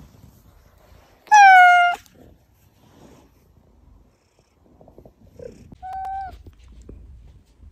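Domestic cat meowing twice: a loud, slightly falling meow about a second in, then a shorter, quieter meow near the end.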